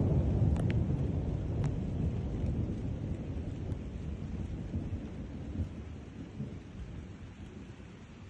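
Thunder rumbling low and slowly dying away over several seconds, with rain falling throughout. A few sharp ticks come in the first two seconds.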